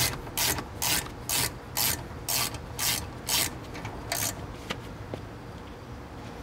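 Hand ratchet wrench tightening a front brake caliper bolt: a series of short ratcheting strokes, about two a second, that stop a little past four seconds in, followed by a few faint ticks.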